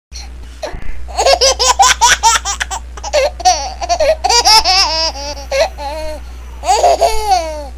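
High-pitched laughter: a quick run of short laughing bursts about a second in, then longer, gliding laughs and a drawn-out falling one near the end, over a steady low hum.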